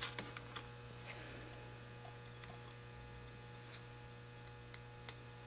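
Steady low electrical hum, with a few faint light clicks of small plastic lens plugs being handled between the fingers.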